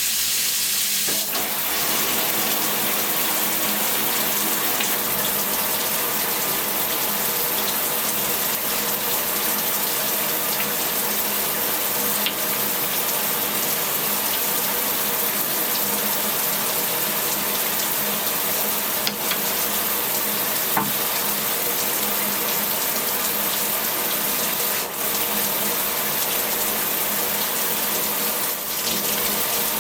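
Steady running water that starts abruptly, with a few faint clicks over it.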